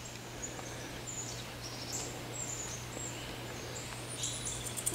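Small birds chirping in short, scattered high notes, some falling in pitch, over a steady low hum. Near the end a fast, pulsing high insect buzz starts up.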